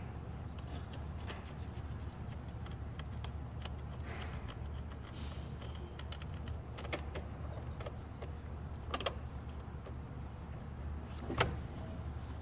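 Scattered small metallic clicks and taps as the nut and bolt are worked off a riding mower's positive battery terminal and the cable is freed by hand, over a steady low hum.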